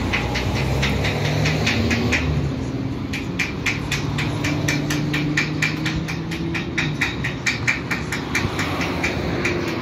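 A 71-623-02 tram's electric traction drive whining in rising steps as it pulls away and accelerates, with a fast, regular ticking of about four ticks a second throughout.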